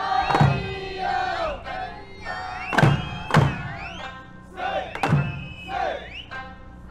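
Okinawan eisa music: singing to sanshin accompaniment, with voices sliding and wavering in pitch. Eisa drums strike loudly in pairs about half a second apart, roughly every two and a half seconds.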